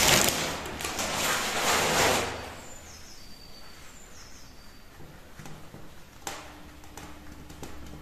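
Loose potting soil rustling and scraping as it is worked into a small ceramic pot, loudest for the first two seconds, then a gloved hand pressing the soil down with a couple of light knocks.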